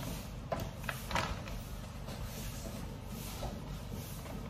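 A few short knocks and rustles of things being handled at a stainless steel kitchen sink, about half a second and a second in, over a steady low hum.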